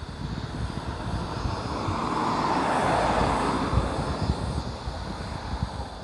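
A vehicle passing by: a rushing noise that swells to its loudest about halfway through and then fades away.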